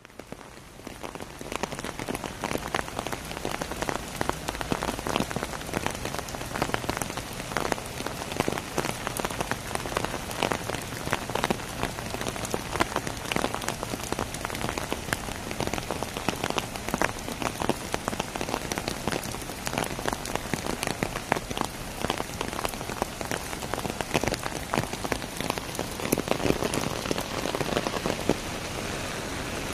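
Heavy rain falling on an umbrella held over the phone, a dense patter of close drop hits over the steady hiss of rain on the road.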